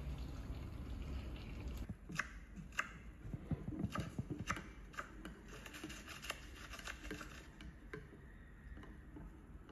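A spoon stirring coffee in a ceramic mug, clinking and tapping against the side of the mug at irregular intervals. A low steady rumble before it cuts off about two seconds in.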